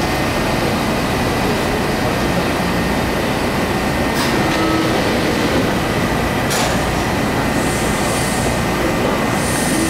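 Washington Metro railcar standing at an underground platform: a steady mechanical hum from its running equipment, with a faint steady high tone over it and two short clicks partway through.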